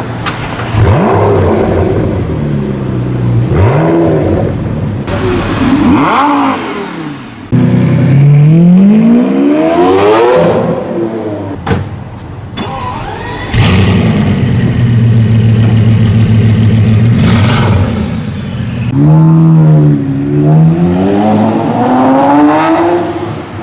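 High-performance sports car engines revving and accelerating in a run of short clips. The engine note climbs through the revs and drops back several times, with a steadier stretch in the middle before a final climb.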